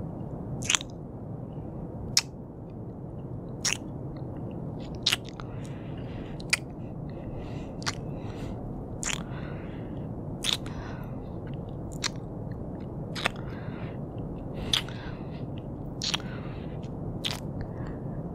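Close-microphone ASMR kissing sounds: short wet mouth smacks repeating about every one and a half seconds, over a steady low background hum.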